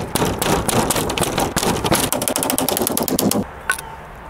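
Rapid, irregular run of clicks and clattering knocks for about three and a half seconds, which then stops abruptly, followed by a single sharp click near the end.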